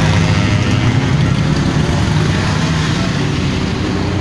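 Motorcycle engines running as motorcycles ride past at low speed through a bend, a steady low rumble that eases slightly near the end.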